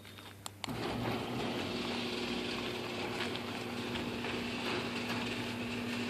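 GeniePro CM8600 XL/M screw drive garage door opener starting up under a second in and then running steadily, with a constant motor hum, as it moves the door.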